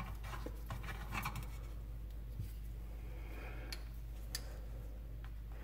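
Faint scraping and clicking of a plastic pivot-rod cap nut being unscrewed by hand from the back of a pop-up sink drain tailpiece, with a couple of sharp ticks around the middle.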